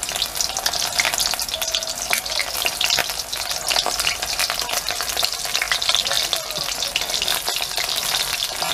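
Batter-coated soya chunks deep-frying in hot oil in a wok: a steady, dense sizzle with fine crackling.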